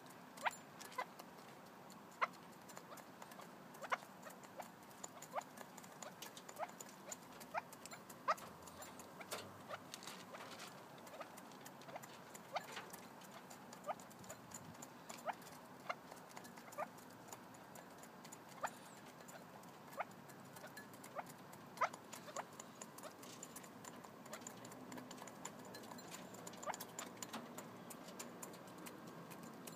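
Red-legged partridges pecking feed pellets from a bowl: irregular sharp taps of beaks on the bowl and pellets, about one or two a second.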